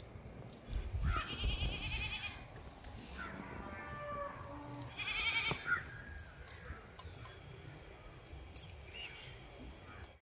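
Livestock bleating twice, a wavering call about a second in and another about five seconds in, with fainter calls in between.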